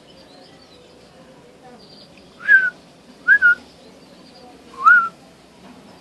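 A person whistling three short, clear notes about a second apart, the second broken into two quick pips and the last rising then falling.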